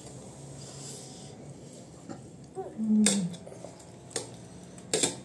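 Mealtime table noises: a few sharp clinks and knocks of a spoon and dishes against a metal plate, the loudest about three seconds in together with a brief low voice sound, and more about four and five seconds in.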